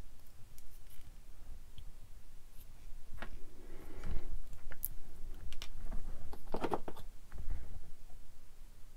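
Scattered light clicks and taps of small plastic model-kit parts being handled between fingers close to the microphone, with a soft rubbing sound about four seconds in.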